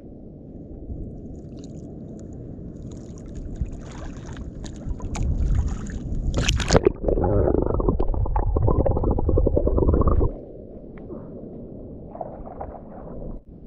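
Low rumble of wind on the microphone and water sloshing against the hull of a small wooden outrigger canoe at sea. A sharp knock about six and a half seconds in starts a much louder stretch that cuts off abruptly a little after ten seconds.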